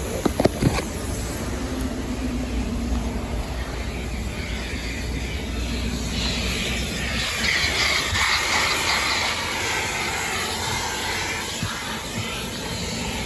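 Self-serve car wash vacuum running steadily, its hose nozzle sucking air over a car's floor carpet. A few sharp knocks come near the start, and the suction hiss grows louder and higher from about six seconds in, easing off a few seconds later.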